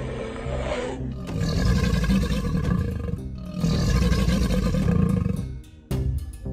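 Two long animal roars, about two seconds each, laid over background music.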